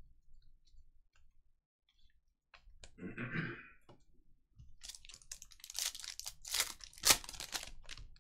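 Trading cards clicking lightly as they are handled, a brief rustle about three seconds in, then from about five seconds in a foil card pack crinkling and tearing open, with the sharpest crackle near the end.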